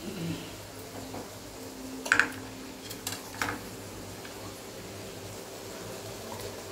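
A few light clicks and taps as a steel plate of nuts and spices is picked up and handled, the loudest about two seconds in and another about a second and a half later, over a steady low hum.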